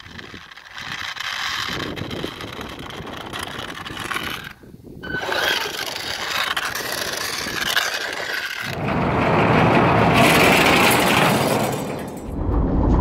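Electric RC monster truck (Traxxas E-Maxx) running, with motor and tyre noise, in several short clips that change abruptly. The loudest stretch, from about nine seconds in, is a harsh rushing noise.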